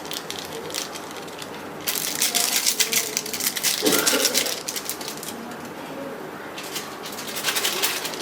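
Food frying in a pan, with rapid crackling and clicking that comes in two spells of a few seconds each.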